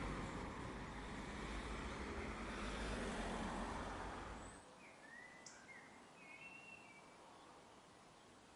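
Low rumble of a passing vehicle that cuts off about four and a half seconds in, followed by a few short bird chirps over faint background hiss.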